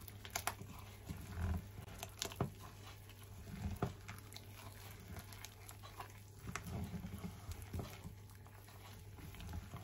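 Gloved hand kneading damp glutinous rice flour dough in a stainless steel bowl: soft, irregular squelching and patting, with a few sharp clicks against the bowl. A steady low hum underneath.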